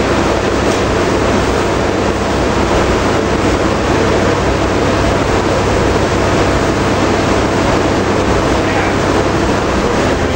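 Chevy 4x4 pickup's engine running steadily at a constant speed, with no revving, during the first test of a newly installed 700R4 automatic transmission. The truck would not go into gear.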